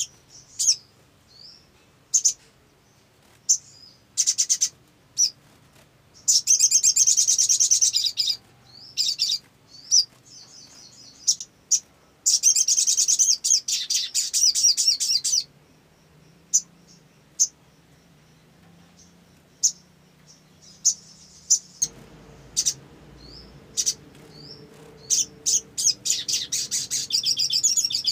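Sunbird calling with sharp, high chirps, broken by bursts of fast chattering song: a short one about four seconds in, longer ones around six to eight and twelve to fifteen seconds in, and another near the end.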